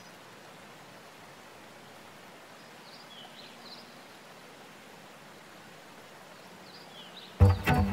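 Faint steady outdoor background noise with a few brief, high bird chirps in two small groups. Near the end, loud bowed-string music with a deep cello line starts abruptly.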